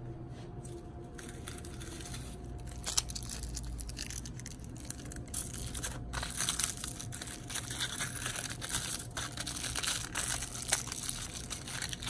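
Aluminium foil crinkling and tearing in irregular crackles as a hand unwraps a foil-wrapped toy car, growing busier about halfway through.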